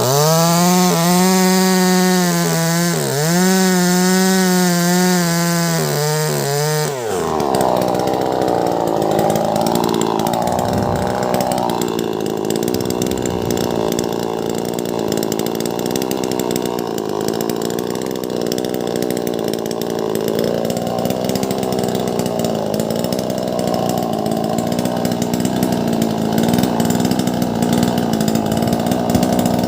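Wagner 580 two-stroke chainsaw with a 16-inch bar at full throttle. About seven seconds in it drops in pitch and roughens as the chain bites into a large log, then runs on under load, cutting steadily.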